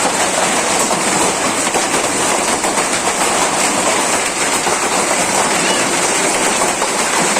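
Hail and heavy rain pelting down in a steady, dense clatter of many small impacts.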